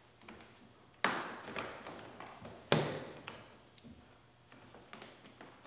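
Knocks and clicks from a 2020 Acura RDX door panel and its inner door handle as the handle is slid off the panel: two sharper knocks about a second and nearly three seconds in, with lighter ticks between and after.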